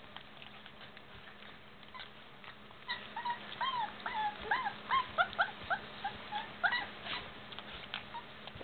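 A puppy whining in a run of about a dozen short, high whimpers and yips, each bending up and down in pitch, from about three seconds in until about seven. Faint clicks of puppies licking and eating at a dish run underneath.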